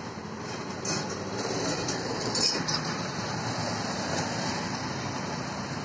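Steady road-traffic rumble with the hum of passing vehicle engines. A few light clinks and rustles come from close by, about a second in and again around two and a half seconds in.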